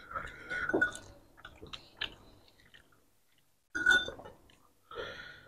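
Two people chewing mouthfuls of roti canai soaked in curry gravy, in a few short bursts with a quiet gap of about a second and a half in the middle.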